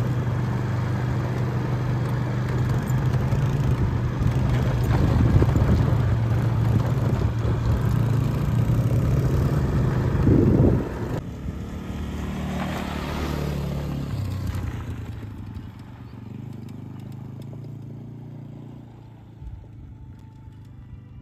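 Small quad bike (ATV) engine running close by with a steady drone, a little louder just before ten seconds in, then dropping off suddenly and fading as the quad moves away across the track.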